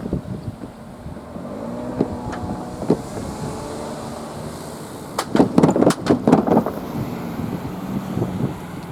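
Diesel railcar crossing a level crossing: the engine runs with its pitch rising, then a quick run of loud wheel clacks over the rails about five seconds in, with wind on the microphone.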